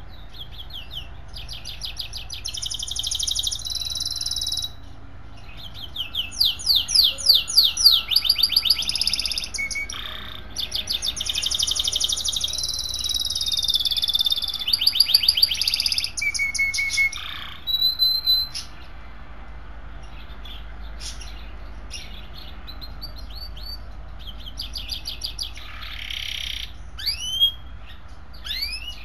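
Canary singing: long, loud phrases of fast rolling trills and held whistled notes for about the first two-thirds, then only scattered short chirps and quick sweeping calls near the end.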